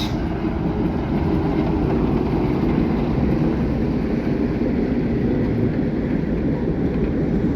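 Steady low rumble of a steam-hauled train running on the line.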